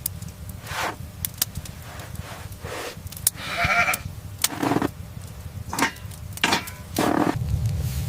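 One short bleat from a sheep- or goat-like animal about three seconds in, among scattered knocks and scraping sounds over a steady low rumble.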